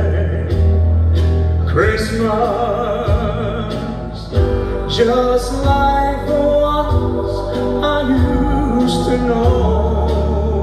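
A man singing into a microphone over an amplified band, with a strong bass, heard through a hall's sound system.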